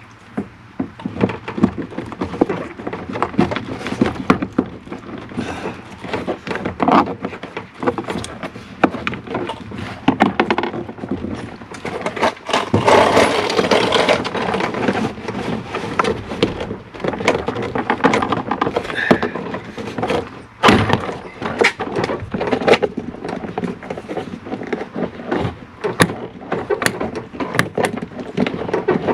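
Irregular clicks, knocks and scraping of parts being handled and pushed against each other while fitting an interior door handle into a pickup truck's door, the part not sliding into place.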